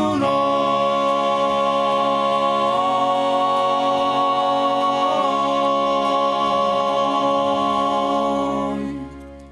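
Male vocal group of five voices singing through microphones, holding the song's final chord. The chord shifts about three seconds in, moves back about two seconds later, and the voices release and fade just before the end.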